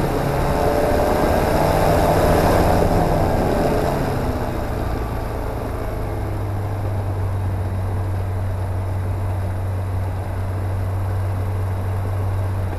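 CSA PS28 Cruiser's Rotax 912 four-cylinder engine idling on the ground, heard from inside the cockpit as a steady low drone. During the first few seconds a louder sound swells and fades, its pitch rising and then falling.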